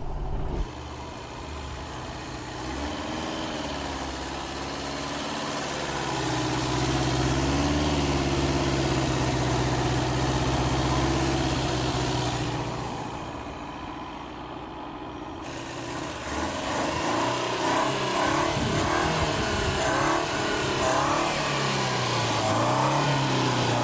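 Four-cylinder carburetted car engine running through four short separate mufflers, one per cylinder, while driving. The engine note rises and falls with the throttle and dips for a couple of seconds about halfway through. The exhaust is fairly quiet; most of what is heard is the engine itself and the carburetor's intake noise.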